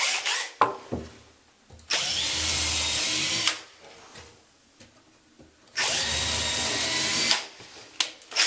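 Power drill running twice, about a second and a half each time, pre-drilling pilot holes in a cedar 2x2 bench support so the soft wood won't split. A few knocks come in the first second.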